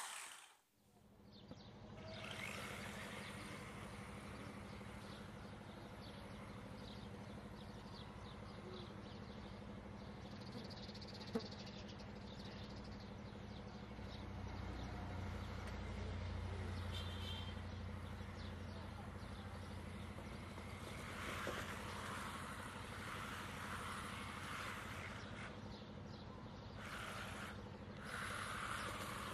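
Small 1/16-scale four-wheel-drive brushless RC drift car running on artificial turf, heard faintly over outdoor background noise and a steady low hum, with louder stretches about two-thirds of the way through and near the end.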